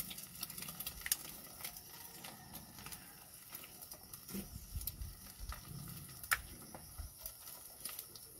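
Wood fire crackling under a cooking pot, with irregular sharp pops and snaps.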